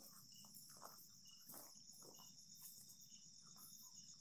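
Faint night insect chorus: crickets giving a steady high-pitched pulsing trill, with another short call repeating about once a second.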